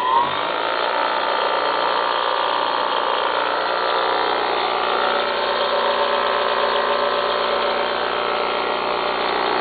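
Baldor 8107WD 3/4 hp, 3600 rpm bench grinder running freely at full speed with no load: a steady hum-whine with several even tones. A rising whine in the first half second levels off as the motor finishes spinning up.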